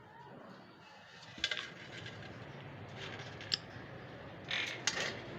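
A few light clicks and taps with some scraping, like small hard objects knocking together; the sharpest come about a second and a half in, again after three and a half seconds, and in a short cluster near the end.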